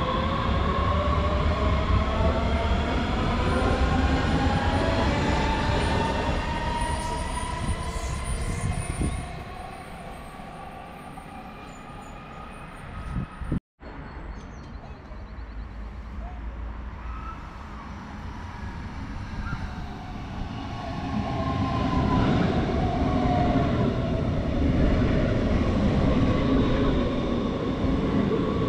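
Stuttgart S-Bahn electric trains at station platforms. First comes the rumble of a train pulling away, its electric motor whine rising in pitch, fading after about nine seconds. After a brief break, another train rolls in close by, its whine falling in pitch as it slows.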